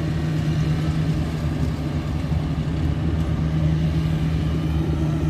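Engine of lawn-mowing machinery running steadily, a constant low hum with no change in pitch.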